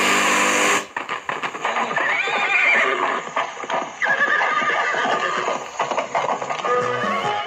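Portable radio-cassette recorder being tuned by hand: a loud burst of static hiss, then wavering, gliding whines and snatches of signal as the dial sweeps between stations, settling onto music near the end.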